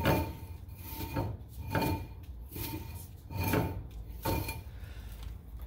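Rear drum brake of a 2000 Honda Civic spun by hand, the new brake shoes rubbing inside the drum in a short scraping swish with each push, a little under once a second. The slight drag is the sign of correctly adjusted shoes, and it sounds fine.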